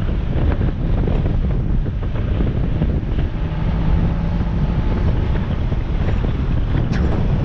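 Wind buffeting the microphone of a camera mounted on the bonnet of a moving car, over the running of the Mazda MX-5 NB's four-cylinder engine through its K&N intake. A steady tone stands out for about a second midway through.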